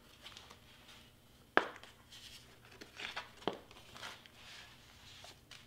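Large foam-board cutout being flipped over and laid on a cutting mat: light scraping and rustling, with a sharp tap about one and a half seconds in and a softer knock about two seconds later.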